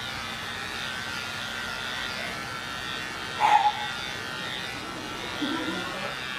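Electric pet clippers buzzing steadily as they shave a Persian cat's long coat. About three and a half seconds in, an animal gives a short, loud cry, and a lower, quieter one follows about two seconds later.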